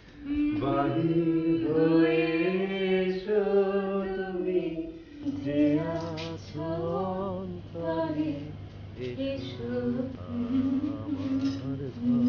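Singing: a slow song with long held notes that waver in pitch, with a low steady tone underneath from about five seconds in.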